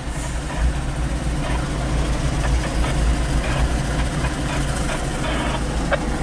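Norfolk Southern diesel-electric locomotives idling with a steady low rumble, heard from inside a car.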